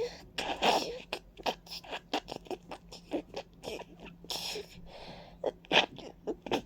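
A person with a stuffy, congested nose sniffling and breathing in rapid, short, noisy bursts, with a louder burst near the end.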